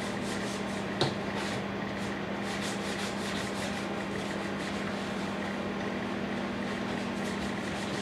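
Scouring pad scrubbing back and forth over the plastic front of a microwave oven in repeated rubbing strokes, with a small click about a second in. A steady hum from the microwave running its cycle lies underneath.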